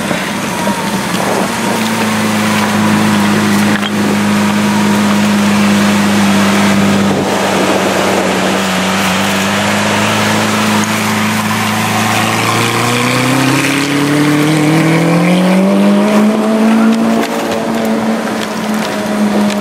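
Lamborghini Aventador LP700-4's 6.5-litre V12 running steadily at low revs while rolling slowly, then rising in pitch as it accelerates about thirteen seconds in and holding at the higher revs.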